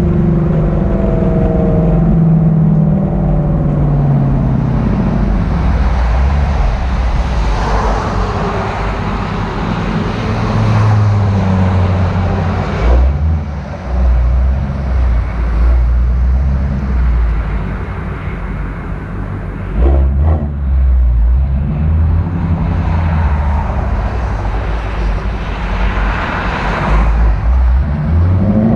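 Ford Shelby GT350's 5.2-litre Voodoo flat-plane-crank V8 through a resonator-delete exhaust, revs rising and falling as it is driven hard. The revs fall over the first few seconds, surge several times in the middle, and climb steeply near the end.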